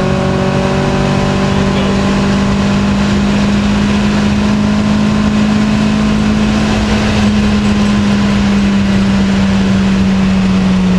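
Interior sound of a 1972 BMW 2002 tii's four-cylinder engine, rebuilt with twin Weber 45 carburettors and a race cam, running hard at high revs on the throttle, its pitch slowly climbing. Loud road and wind noise fills the cabin under the engine note.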